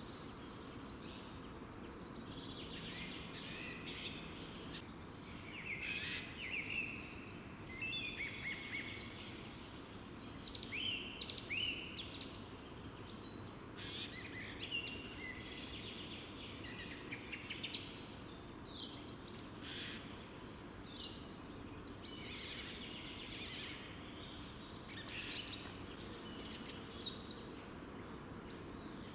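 Songbirds singing a morning chorus, with short chirped and trilled phrases that follow and overlap one another throughout. A steady low background rumble runs underneath.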